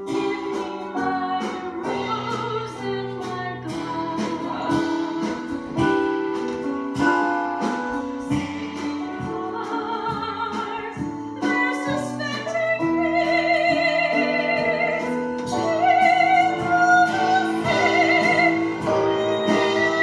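Musical-theatre song with orchestral accompaniment; in the second half long notes are held with a wide vibrato.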